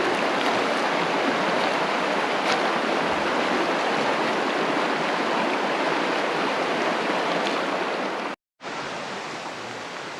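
Steady rushing of a wide, shallow river of cold mountain meltwater running over its bed. About eight seconds in, the sound cuts off for a moment at an edit, then returns as a quieter rushing.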